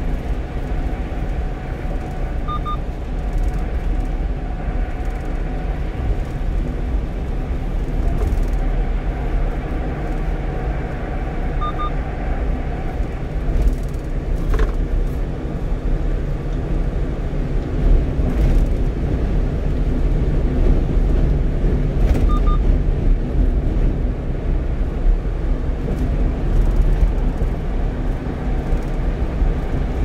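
Cab noise of a 1-ton truck cruising on the expressway: a steady low rumble of engine, tyres and road. A faint short double beep comes three times, about ten seconds apart.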